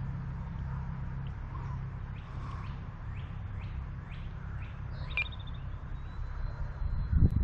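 Wind buffeting the microphone, with a small bird singing a run of quick descending chirps in the middle. A short electronic beep comes about five seconds in.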